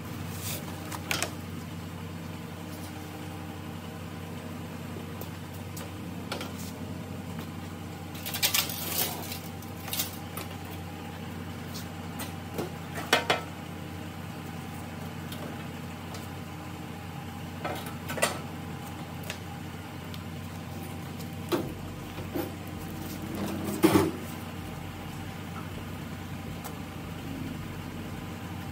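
Steady low hum of a workshop with scattered knocks, clicks and a few short rasping noises from work going on, the loudest about halfway and near the end.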